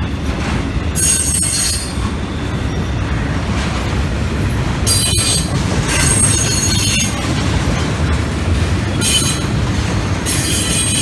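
Intermodal freight train's cars rolling past with a steady heavy rumble. Several bursts of high-pitched wheel squeal come and go: about a second in, around five to seven seconds in, and near the end.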